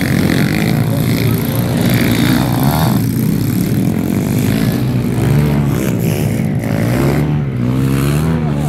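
Several pit bikes' small motorcycle engines running and revving around a dirt track, their notes overlapping. From about halfway on, engine pitches swoop up and down as riders accelerate and ease off.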